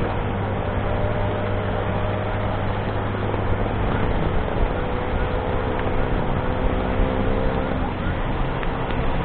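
Motorcycle riding along a city road: a steady engine hum under a constant haze of wind and road noise, with surrounding traffic.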